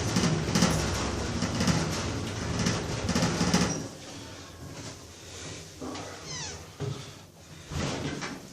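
Orona OR96 lift's automatic sliding doors running, then a short rising squeak about six seconds in.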